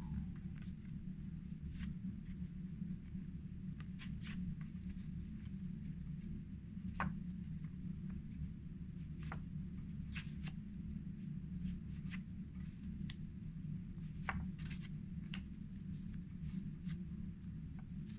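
Paper word cards handled and moved from the front of a pile to the back, one after another, giving short clicks and rustles every second or so over a steady low hum.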